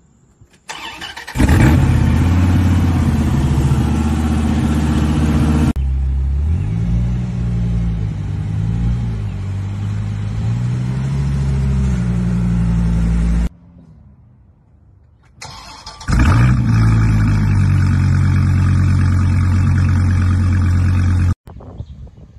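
Dodge Viper V10 engines in a string of clips: an engine catching suddenly about a second in and running loud and even, then another rumbling with its revs rising and falling several times. After a short quieter stretch, a second start flares up and settles into a loud idle until it cuts off abruptly near the end.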